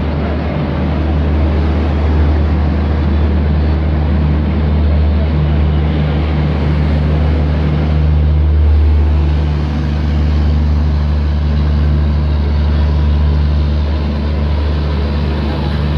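Steady low drone of a diesel-electric locomotive engine running, under a wash of general noise.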